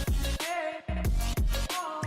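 Electronic dance music with heavy bass and repeated falling bass sweeps on the beat; the deep bass drops out briefly twice.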